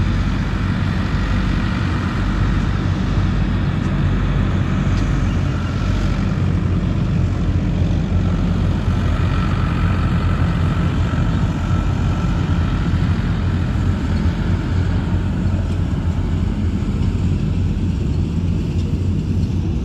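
Diesel tractor engines running steadily while working to pull out a loaded grain trailer stuck in soft, wet field soil.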